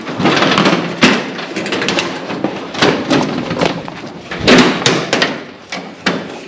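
Repeated clanks and knocks of sheet-metal race car body panels being handled and fitted, several sharp hits a second or so apart, with scraping of metal between them.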